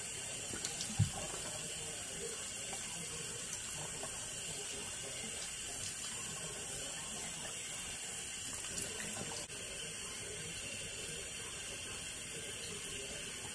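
Bathroom sink tap running steadily while a face mask is rinsed off, with one brief knock about a second in.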